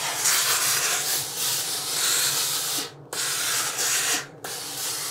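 Steam iron hissing as it presses a fabric pocket flat, in three long spurts broken by short pauses about three and four seconds in.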